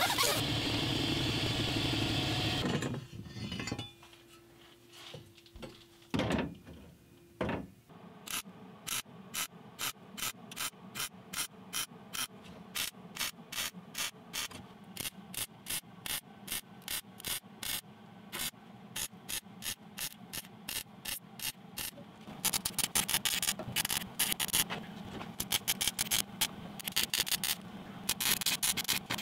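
MIG welder stitch-welding sheet steel: short bursts of arc crackle at about three a second, turning denser and louder for the last several seconds. At the start, a hand-held power tool runs for about three seconds, then stops.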